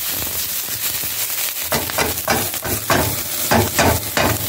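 Onion, celery, bell pepper and julienned ginger sizzling in a hot wok with little liquid, a steady hiss. From about two seconds in, a wooden spatula scrapes and tosses them against the wok, two or three strokes a second.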